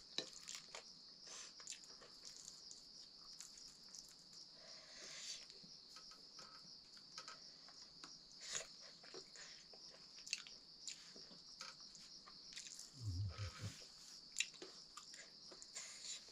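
Someone eating with their fingers from a metal plate: soft clicks and scrapes on the plate and chewing, over a steady high chirring of crickets. A brief low sound about three seconds before the end.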